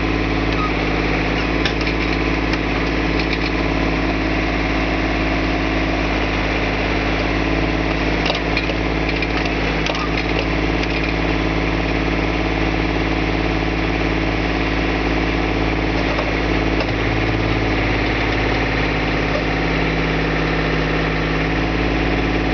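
John Deere garden tractor's engine running steadily at a constant speed while it powers a rear backhoe attachment. A few light knocks are heard near two, eight and ten seconds in.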